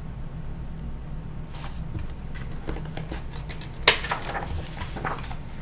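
Hardcover picture book being handled and its pages turned: paper rustles and light taps, with one sharp click about four seconds in, over a low steady hum.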